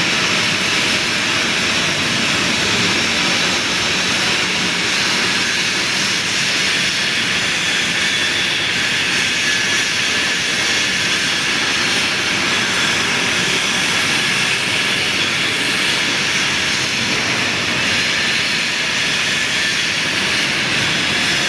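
Large lathe running while machining a metal ring, a loud, steady whirring machine noise with a hiss that neither starts nor stops.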